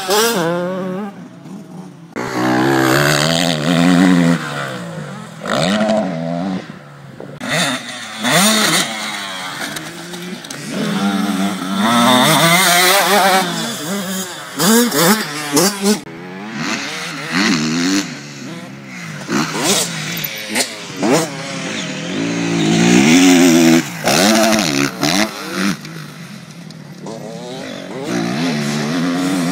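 Motocross dirt bike engines revving hard and backing off, the pitch climbing and falling again and again as they ride up and over jumps. The sound changes suddenly several times as one bike's run gives way to another's.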